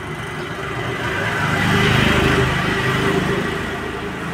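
A motor vehicle engine passing by, rising in loudness to a peak about two seconds in and then fading.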